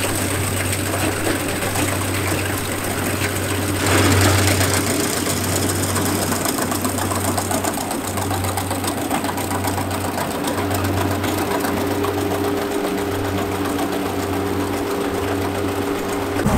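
Small electric motor of a toy farm vehicle running with a steady buzz. It surges briefly about four seconds in, then waxes and wanes about once a second.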